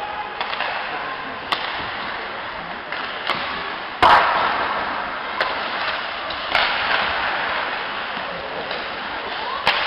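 Ice hockey play in an indoor rink: a steady crowd and arena hum broken by sharp clacks and bangs of sticks, puck and boards, the loudest a hard bang about four seconds in.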